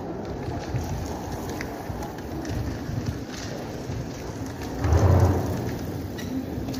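Steady low rumble echoing inside a brick railway tunnel, with a louder low surge about five seconds in.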